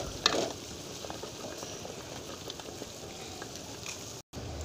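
Tomato-onion masala bubbling and sizzling in oil in a steel pot as cut okra is tipped in, with a few light knocks of the pieces landing near the start. The sound drops out for a moment near the end.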